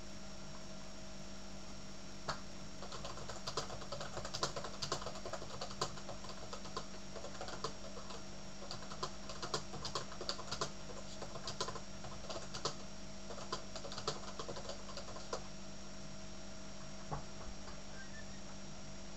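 Typing on a computer keyboard: a run of irregular key clicks starting about two seconds in and stopping about fifteen seconds in, with one more click near the end, over a steady hum.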